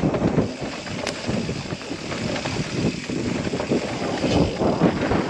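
Wind buffeting the microphone of a mountain biker's camera during a fast singletrack descent, over the continuous rumble and rattle of the bike rolling on leaf-covered dirt.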